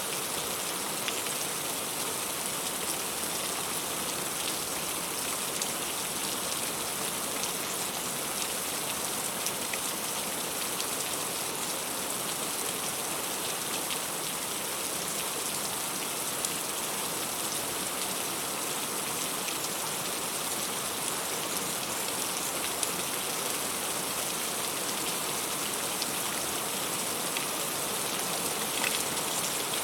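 Heavy rain falling steadily, a dense even hiss dotted with many small sharp drop impacts.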